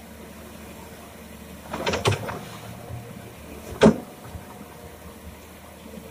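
Komatsu PC200-6 excavator running steadily as its bucket digs gravel under water, with a quick cluster of clanks about two seconds in and one loud sharp clank just before four seconds from the bucket and arm working against the stones.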